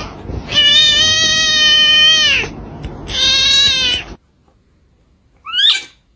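Domestic cat yowling: two long, drawn-out angry calls, the second cut off suddenly, then after a pause a short rising squeak.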